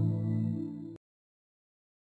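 Calm intro music of sustained, held tones that cuts off abruptly about a second in, leaving dead silence.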